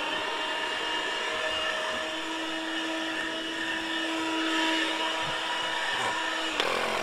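12-volt car vacuum cleaner, powered from the cigarette-lighter socket, running with a steady motor whine. It is switched off and winds down at the very end.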